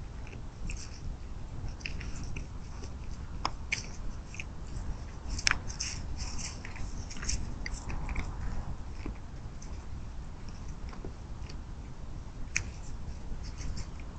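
Deer crunching cracked corn and sweet feed: irregular short crunches and clicks, busiest in the middle and again near the end, over a low steady rumble.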